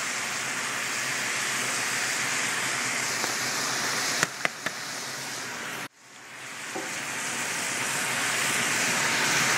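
Chicken and bell pepper strips sizzling steadily in a hot cast iron skillet, with three sharp clicks a little past four seconds in. The sizzle cuts out abruptly about six seconds in, then builds back up.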